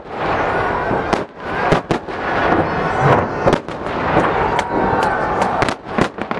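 Fireworks display: aerial shells bursting in quick succession, a dozen or so sharp bangs over continuous dense crackling.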